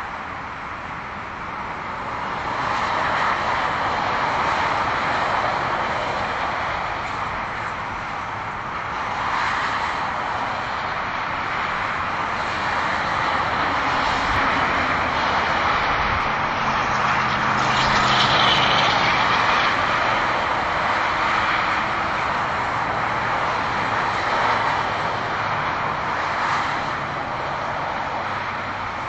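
Highway traffic: a continuous rush of tyres and engines from cars passing at speed, swelling several times as vehicles go by and easing off between them.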